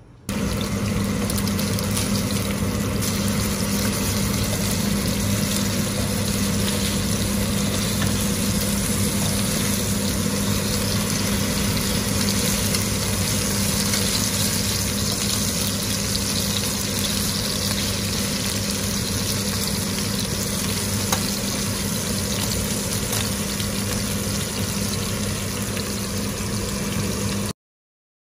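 Chicken thighs frying in a little vegetable oil in a non-stick pan, a steady sizzle with a constant low hum underneath. It cuts off abruptly near the end.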